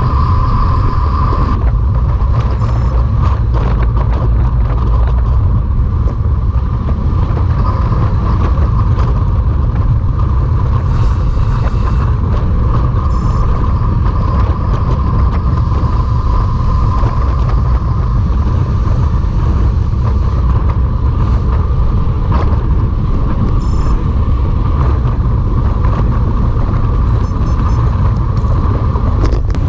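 Steady wind rumble over the microphone of a camera carried on a road bike while riding, with a steady mid-pitched hum underneath.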